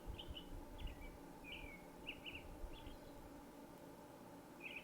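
Faint birdsong: a steady string of short, high chirps and twitters from small birds over a faint low background noise.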